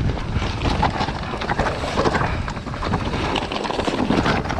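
Wind buffeting the action-camera microphone over a Commencal Meta Power 29 electric mountain bike rolling fast down a rocky trail: tyres rumbling over loose stones, with a constant run of small knocks and rattles from the bike.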